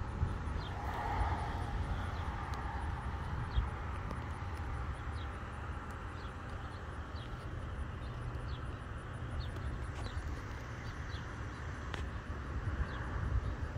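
A small bird chirping over and over, short high chirps about once a second, over a steady low rumble and a faint hiss of outdoor background.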